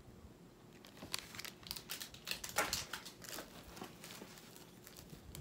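Soft, irregular crinkling and rustling of packaging being handled: a foil-wrapped candy and the shredded paper filler of a gift box.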